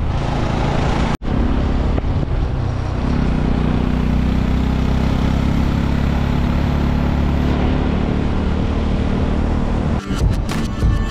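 Motorcycle engine running steadily at road speed while riding, with wind noise over it. There is a brief break about a second in, and music comes in near the end.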